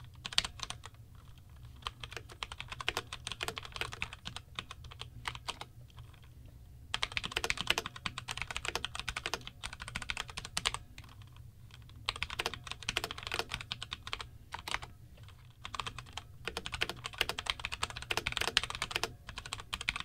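Typing on a Razer Pro Type mechanical keyboard with Razer orange switches: rapid runs of key clacks that are not very clicky, in bursts of a few seconds separated by short pauses.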